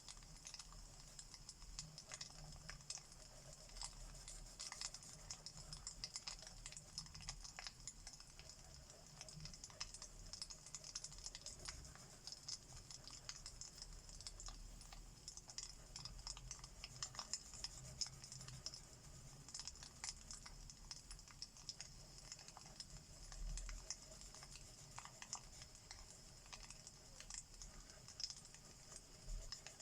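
Wood fire crackling in a fireplace: a steady run of small, irregular pops and snaps over a faint low rumble.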